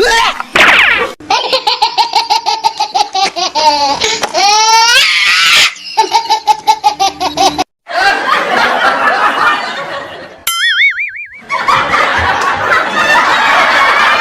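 Loud laughter: a run of quick, pulsed laughs, then a broader spread of laughing like a crowd. A short warbling tone cuts in for about a second, roughly ten and a half seconds in.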